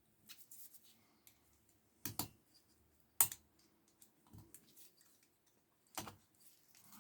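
Light clicks and sharp knocks of metal parts as the cylinder of a Stihl 020T chainsaw is worked down over the piston and its rings, with the loudest knock about three seconds in and others about two and six seconds in.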